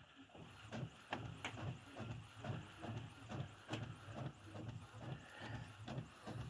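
Epson Expression Premium XP-6000 inkjet printer printing: the print head runs back and forth across the page in a steady, even rhythm of about two to three passes a second, with light clicks.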